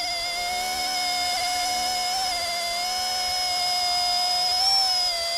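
RC ERA C123 EC135 scale RC helicopter's dual brushless direct-drive motors whining steadily in flight, the pitch wavering slightly a couple of times as the throttle shifts.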